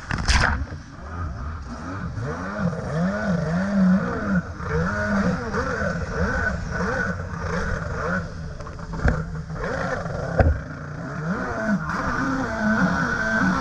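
Stand-up jet ski's two-stroke engine revving up and down over and over, its pitch swelling and dropping every second or so, over the rush of water. A loud splash hits just at the start.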